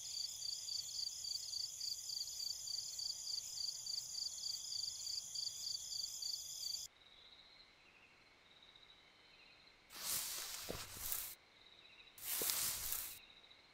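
Crickets chirping in a dense, fast-pulsing chorus that cuts off abruptly about seven seconds in, leaving a faint night ambience with distant insects. Two rustles of dry grass follow, about 10 and 12 seconds in.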